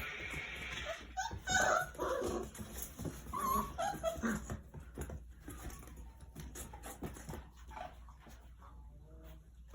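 Four-week-old puppies whimpering and yipping in short pitched calls, loudest in the first half, with a few light knocks and clicks as they play.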